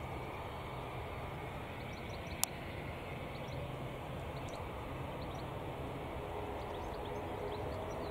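Boeing 777-300ER's GE90 engines heard at a distance on final approach: a steady low jet rumble growing slightly louder near the end. A single sharp click about two and a half seconds in.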